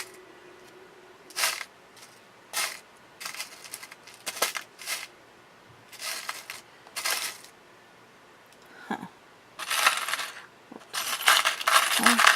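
Small metal brads clinking as they are picked through by hand: separate short clinks at first, then a denser rattling over the last few seconds.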